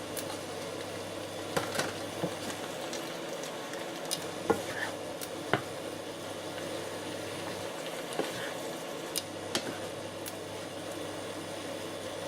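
Chicken and mushrooms sizzling steadily in a frying pan after a splash of water, with a dozen or so sharp clicks scattered through it.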